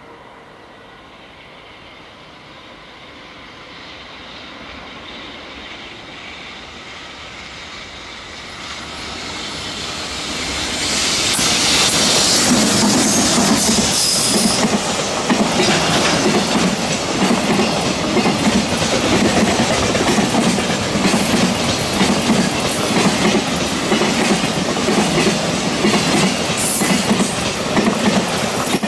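Electric freight train approaching, growing steadily louder over about ten seconds, then a long line of container wagons passing close with a continuous clickety-clack of wheels over the rail joints. A few brief high wheel squeals cut through as the wagons go by.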